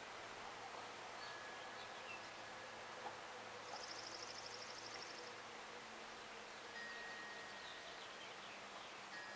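Faint outdoor ambience with one brief, high, rapid trill about four seconds in, and faint long ringing tones coming and going.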